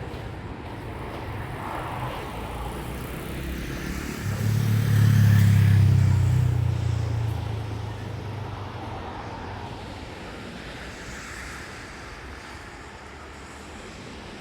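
A road vehicle passes, its low engine rumble swelling to a peak about five seconds in and fading away over the next few seconds, over a steady wash of wind and surf.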